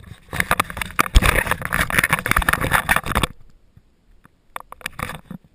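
Close rustling and scraping from the action camera being handled and moved, lasting about three seconds, followed by a few light knocks.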